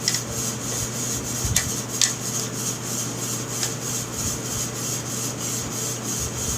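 Light rubbing and a few small clicks from the metal bolt parts of a Stevens 320 pump shotgun as they are handled and fitted back into the receiver. The clicks come about four times, over a steady background hum.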